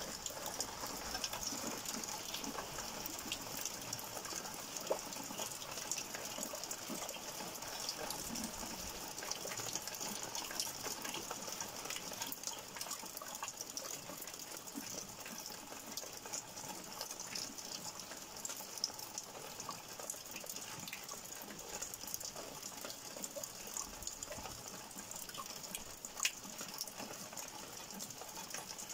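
Rain falling steadily outside an open window: a constant hiss with many small patters and drip ticks throughout.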